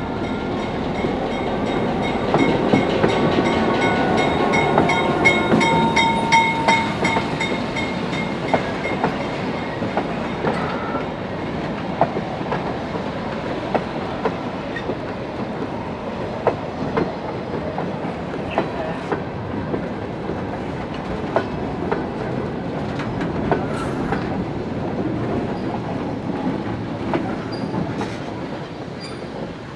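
Passenger excursion train rolling past, its wheels clicking rhythmically over the rail joints under a continuous rumble. A thin steady squeal sounds over it for the first several seconds, and the passing is loudest a few seconds in.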